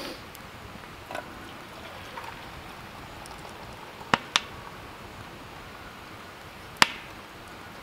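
Boiling water poured from a kettle into a French press, a steady trickling hiss. Three sharp clicks or pops cut through it: two close together about four seconds in and one near the end.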